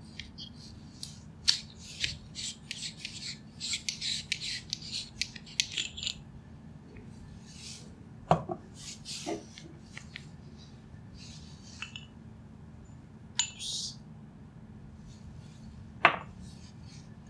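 Small hard objects clinking and rattling: a dense run of quick clicks and rattles for the first six seconds, then a few single sharp clicks spaced several seconds apart, over a steady low hum.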